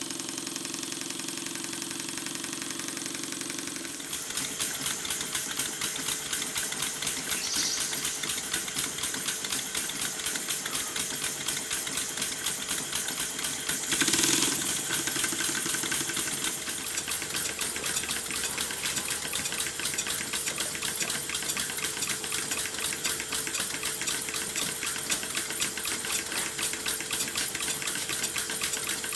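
Stuart model steam engines running on compressed air: a fast, even exhaust beat with air hiss. About four seconds in the beat turns busier and louder, and about halfway there is a brief louder burst.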